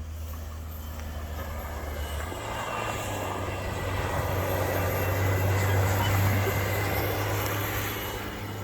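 Engine noise with a steady low hum, swelling louder toward the middle and easing off near the end, like a motor vehicle passing.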